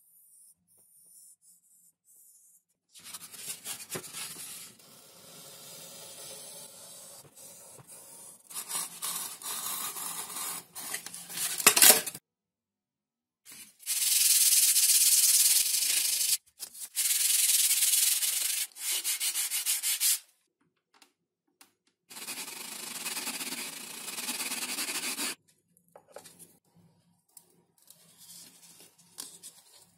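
Sanding or rubbing on the foam and balsa parts of a model airplane. The noise comes in stretches of a few seconds that start and stop abruptly, with a sharp click about twelve seconds in.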